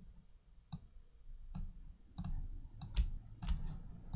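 Computer mouse clicking: about five single sharp clicks, spaced irregularly, while a colour is picked on screen.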